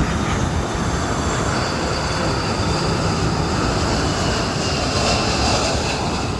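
Jet airliner passing low overhead: a loud, steady rush of engine noise with a high whine that slowly falls in pitch.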